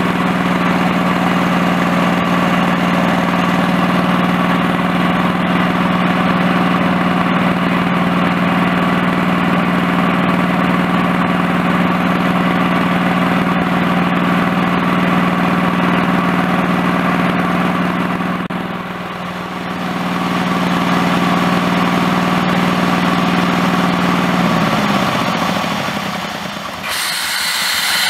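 The engine of a small home-built tractor running steadily while it pulls a miniature slurry tanker. Near the end its pitch drops as it slows, and then the sound changes abruptly.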